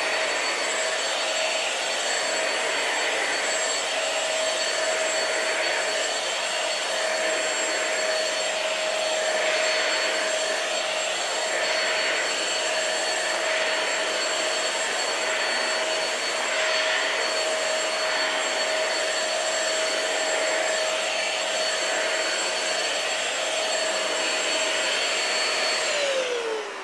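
Red upright stick vacuum cleaner running on a rug: a steady motor whine over airflow hiss. Near the end it is switched off and the motor winds down with a falling pitch.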